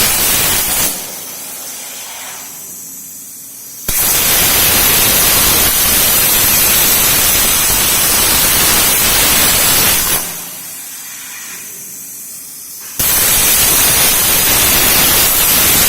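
CNC plasma cutter's torch arc cutting: a loud, steady hiss that cuts off about a second in, starts again abruptly about four seconds in and runs some six seconds, then starts once more near the end.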